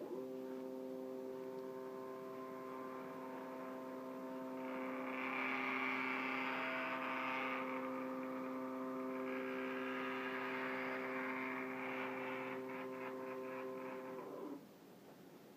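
CNC machine's X axis on a test run, its stepper motor driving with a steady humming whine. A hissy rattle from the moving axis joins it twice in the middle, a quick run of ticks follows, and the whole sound stops suddenly near the end.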